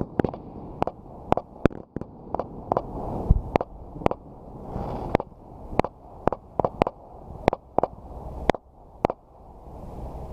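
Fireworks going off: a rapid, irregular string of sharp bangs, about two a second, over a continuous low rumble, with the bangs stopping near the end.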